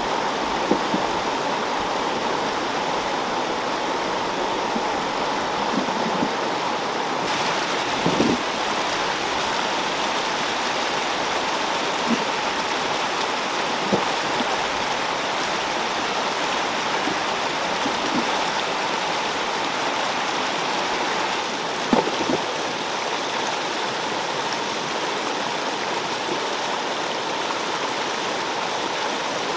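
Shallow stream rushing and splashing over rocks in a steady, loud flow, with a few brief knocks.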